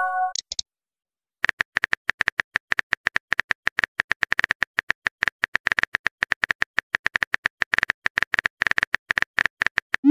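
Phone keyboard typing clicks, rapid and even at several a second, starting about a second and a half in after a short pause. Just before that, the tail of a message-received chime and a couple of short high blips.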